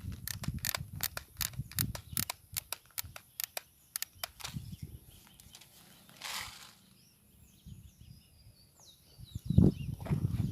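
Ratcheting clicks of an airsoft high-capacity magazine's winding wheel being turned, about five or six clicks a second for some four seconds. Then a short rustle, and faint bird chirps near the end.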